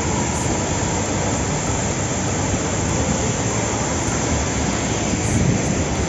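Steady rush of a 20-metre waterfall pouring down onto the rocks at its foot, an even, unbroken noise.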